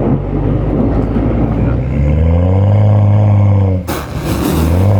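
BMW M235i's N55 turbocharged inline-six accelerating hard: the engine note climbs and holds. About a second from the end, an upshift breaks it with a short sharp noise, and the engine pulls again from lower revs.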